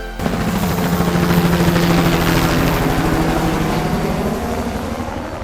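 Quadcopter drone propellers running with a steady hum and rushing air, fading slowly toward the end.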